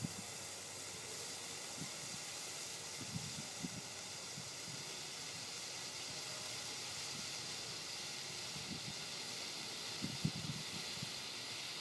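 A Dominator 60-second colour torch firework burning with a steady hiss. A few soft low pops come about three seconds in and again near the end.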